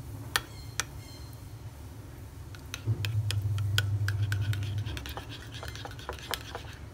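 Metal spoon clinking and scraping against a ceramic bowl while stirring a thick sesame dressing. Two clinks come near the start, then quicker, busier clinks from about two and a half seconds in, over a low hum.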